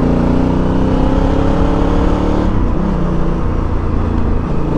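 Honda Africa Twin Adventure's parallel-twin engine pulling under acceleration, its note rising, then dropping sharply about two and a half seconds in and pulling on at a lower pitch. Wind rushes over the helmet-mounted microphone.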